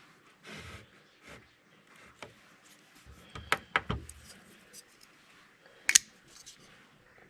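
Handling noise from a folding pocket knife: scattered light clicks and rubs, with sharper clicks about three and a half, four and six seconds in.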